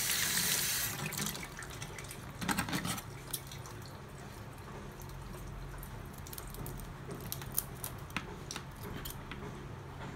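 Tap water running into a tub of raw shrimp as they are washed, cutting off about a second in. It is followed by a short splash and scattered small clicks and rustles of the wet shrimp being handled.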